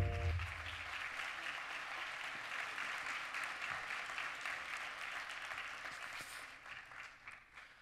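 Audience applauding steadily, thinning out near the end. In the first half second the intro music ends with a low boom and a last held chord.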